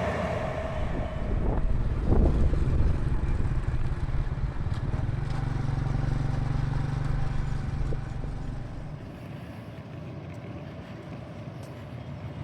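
Low rumble of a passing vehicle, with a couple of knocks about two seconds in, loud for most of the stretch and then dropping to a quieter steady noise about eight seconds in.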